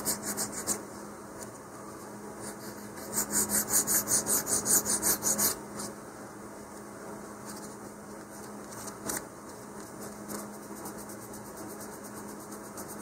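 Emery board filing tiny fin reinforcement pieces to taper them, in quick back-and-forth strokes of about six a second. There are two bouts: one ends just after the start and one runs from about three seconds in to about five and a half, with quieter rubbing in between.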